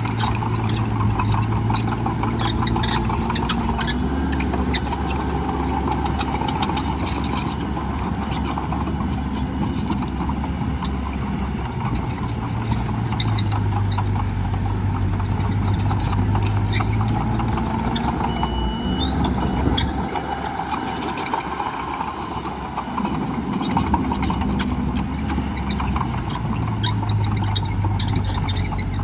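Heavy diesel earthmoving machinery running, its engine pitch rising and falling as it works, over a constant clatter. The engine eases off for a few seconds about two-thirds of the way in, then picks up again.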